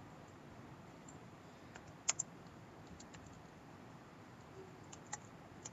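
A few sharp, separate computer keyboard keystrokes and mouse clicks: a loud pair about two seconds in, a few fainter ones around three seconds, and another pair near the end.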